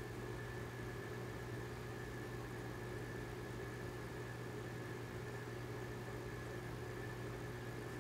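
Aquarium air pump and filters running: a steady low hum with a few faint steady tones over an even hiss.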